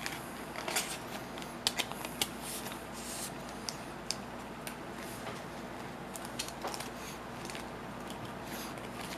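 Trading cards and plastic card sleeves handled in the hands: scattered soft clicks and rustles as cards are slid into sleeves and stacked, busier in the first few seconds.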